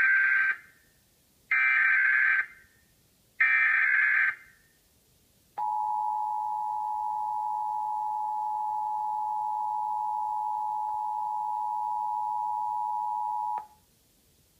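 Emergency Alert System activation: three short bursts of SAME digital header tones, each under a second, then the EAS two-tone attention signal (853 and 960 Hz together), held steady for about eight seconds and cut off sharply. Here it marks the start of a national periodic test.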